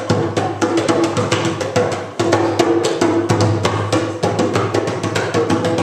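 A group of djembes and other hand drums played together by hand in a fast, steady rhythm of sharp strokes.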